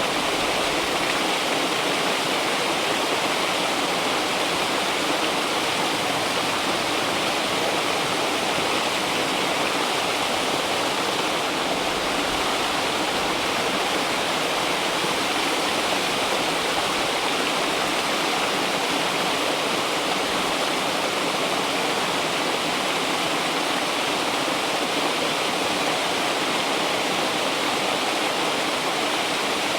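River water rushing and babbling in a steady, unbroken wash.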